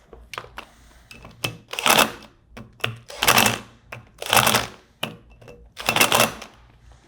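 A power driver running the four retainer bolts into a pump back plate, in four short rattling bursts about a second or so apart with small tool clicks between them.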